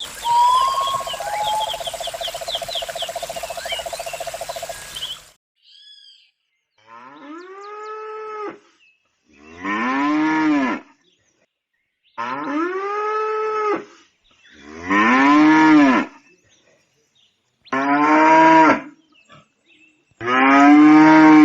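Cows mooing six times, long drawn-out moos that each rise and then fall in pitch, coming about every two and a half seconds from about seven seconds in. The first five seconds hold a different sound: a steady pulsing buzz with high bird-like chirps.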